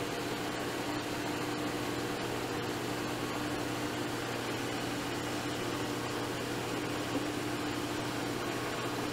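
Vertical milling machine running steadily, its spindle turning a 4-flute end mill that is being hand-fed into a metal part: an even hum with a few constant tones.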